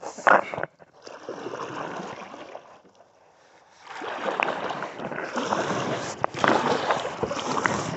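Water sloshing and splashing around a kayak as it is paddled, with a brief loud bump just after the start and a lull about three seconds in.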